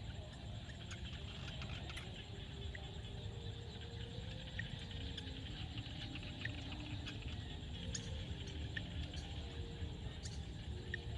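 Frog chorus in a field: dense, fast chirping and clicking, with short low croaking notes that come and go, over a low steady rumble.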